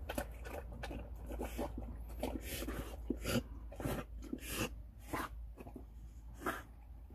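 A dog lapping and slurping noodle soup from a metal pan, with irregular wet laps and lip-smacks and a few louder ones in the second half.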